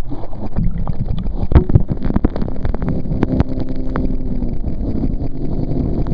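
A towboat pulling a slalom water skier up from a deep-water start: the boat's engine running hard under load, water rushing and splashing around the skier, and wind on the microphone, with frequent sharp knocks throughout.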